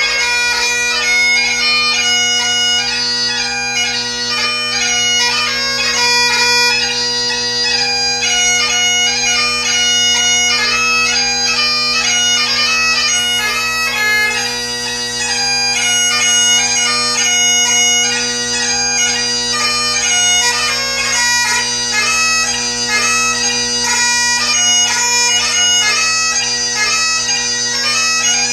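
Great Highland bagpipe played solo: the drones hold one steady low tone under a chanter melody that moves quickly from note to note.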